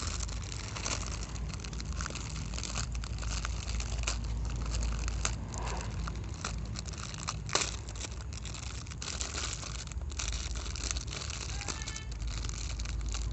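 Plastic toy packaging crinkling and tearing in irregular crackles as a toy is unwrapped by hand.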